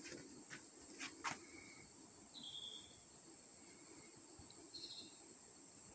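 Faint jungle ambience: a steady high-pitched insect drone, a few short chirps, and a few faint clicks in the first second and a half.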